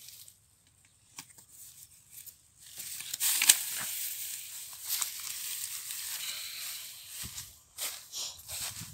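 Dry rice stalks and straw rustling and crackling as they are pushed aside and trodden through, in uneven bursts starting about three seconds in.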